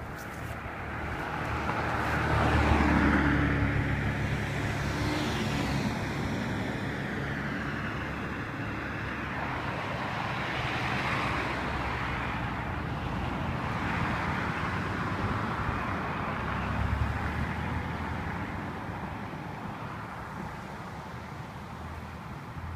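Road traffic: cars passing one after another on a multi-lane street, each rising and fading as it goes by, the loudest about three seconds in with a low engine hum.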